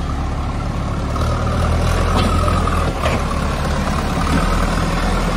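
Diesel engine of a JCB 3DX backhoe loader running steadily with a deep rumble as the machine drives, with a couple of light clanks in the middle.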